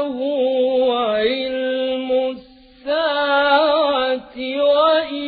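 A man's voice reciting the Quran in a melodic chanted style, holding long notes that waver and turn in pitch. The voice breaks off briefly about two and a half seconds in, then takes up the line again.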